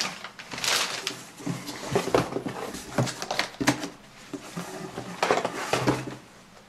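Unboxing handling noise: paper packing rustling, the cardboard box being handled, and irregular knocks and crinkles as plastic clamshell packages are lifted out.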